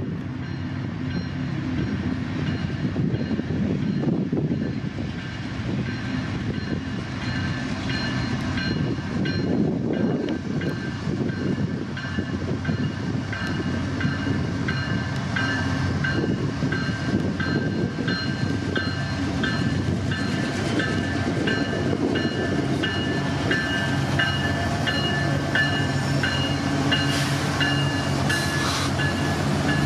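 Railroad grade-crossing bell ringing with quick repeated strikes while a freight train's diesel locomotives approach. The low engine rumble grows louder through the second half as the train nears the crossing.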